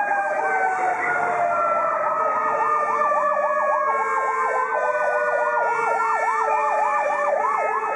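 Fire-truck sirens: a Federal Q2B mechanical siren winding down in one long falling wail, with an electronic siren yelping about three times a second over it.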